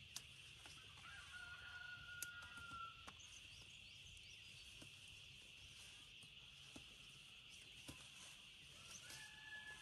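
A rooster crowing twice, faintly: one long call about a second in and another near the end, over a steady high hiss, with a few soft clicks from plants being handled.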